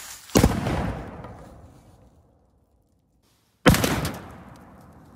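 Black powder cannon firing twice, about three seconds apart: each a sharp blast followed by a rumble that dies away over about a second and a half.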